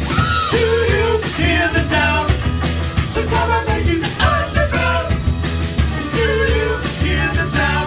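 Live rock band playing: electric guitar, bass guitar and drums keeping a steady beat under a male lead vocal.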